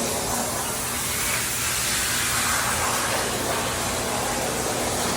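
Steady, even hiss with a faint low hum under it.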